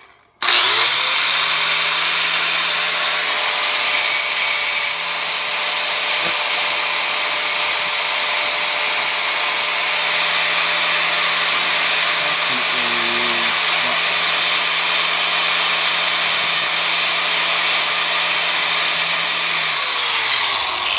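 Angle grinder spinning up about half a second in and cutting a nick into a thin stainless steel strip from a windshield wiper blade, running steadily with a loud hiss of metal being ground, then winding down near the end.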